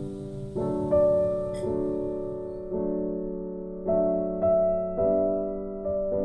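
Soft background piano music: slow chords and single notes, each struck and left to ring.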